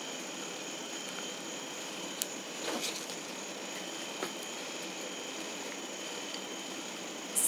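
Steady low room hum with a few faint clicks and a soft rustle from fingers pressing and handling a soft-baked brownie, and a short high hiss near the end.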